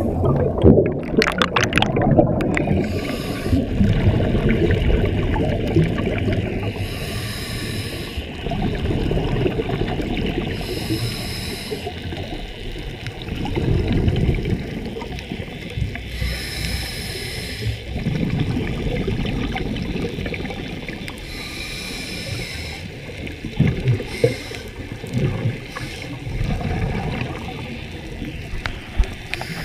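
Scuba diver breathing through a regulator, heard underwater: a hiss at each inhalation, several seconds apart, between low rumbling gurgles of exhaled bubbles.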